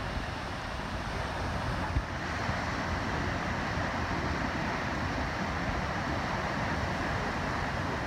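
Small surf breaking and washing up the sand, with wind rumbling on the microphone. A short bump about two seconds in.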